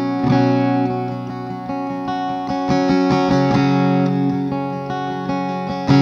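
SQOE A830C acoustic-electric guitar with a solid top and mahogany body, played with a pick: a run of picked notes and chords that ring on. The lower strings sound fuller from about halfway through.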